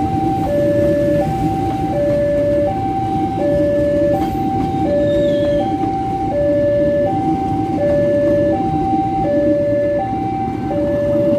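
Railway level-crossing warning alarm sounding a steady alternating two-tone chime, high then low, each tone lasting under a second. Under it, the steady rumble of passenger coaches rolling past on the track.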